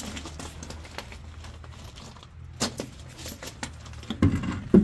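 Loose steel lug nuts and hardware clinking and jingling against each other while being handled at a truck wheel, with a few sharp clicks and a louder cluster of metal knocks near the end.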